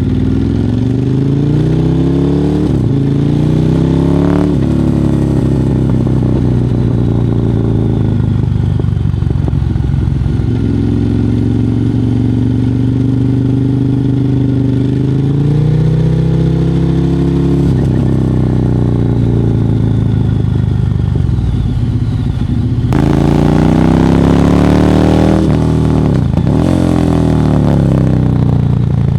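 Ducati Monster 1100 EVO's air-cooled L-twin engine running through a Termignoni exhaust, its pitch climbing and dropping again and again as the revs go up and down. About three quarters of the way through it gets louder and rougher for a few seconds.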